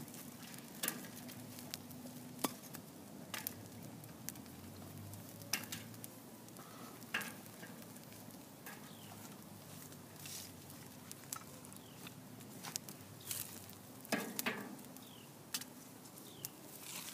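Small campfire crackling, with irregular sharp pops every second or two.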